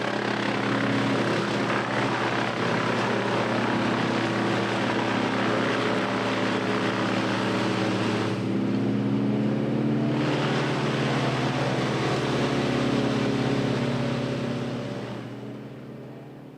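Engine-driven tree-removal machinery running steadily, with a harsh, noisy layer over the engine note. The noise drops away for a couple of seconds about eight seconds in, then returns, and the whole sound fades out near the end.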